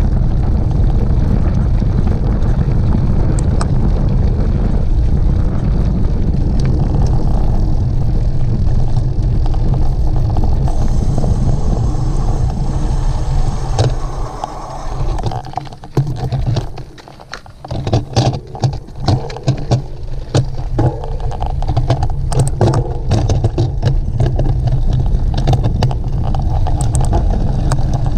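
Wind buffeting the microphone of a camera riding along a mountain-bike race course. The rumble eases off about halfway through and gives way for several seconds to irregular rattles and knocks from the bike on rough ground, then builds again.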